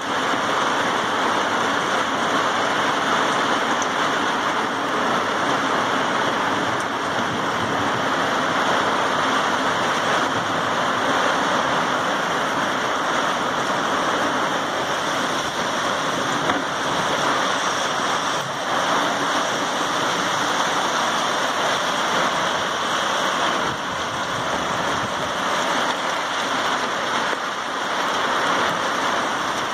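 Heavy rain pouring down in a hard, punching downpour: a steady, dense hiss.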